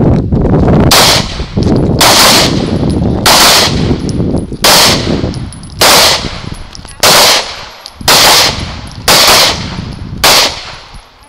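Semi-automatic pistol shots from several shooters firing at paper targets, about one shot a second, unevenly spaced, each dying away in a short tail.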